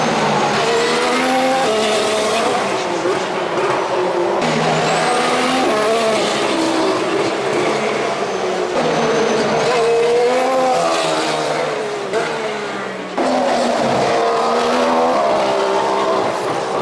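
2014 Formula One 1.6-litre turbocharged V6 hybrid engines revving up and down through the gears, the pitch climbing and dropping again and again, with a thin high whistle rising at times. The sound changes abruptly about four seconds in and again near the end.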